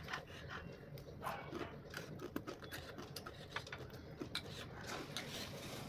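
A person chewing raw green chilli close to the microphone: irregular wet clicks and crunches, several a second, with no hiccup heard.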